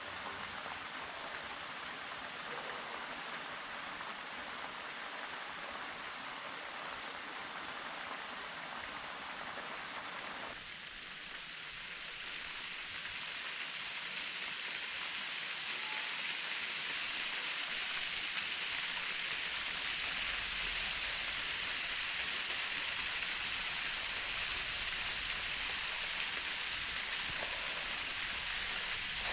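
Waterfall pouring into a pool: a steady rush and splash of water that turns suddenly louder and brighter about ten seconds in.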